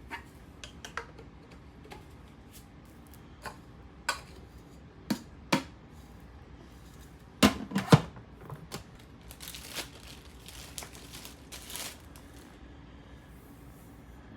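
Plastic humidifier parts and packaging being handled: scattered clicks and knocks, the loudest a quick cluster about halfway through, followed by short rustles.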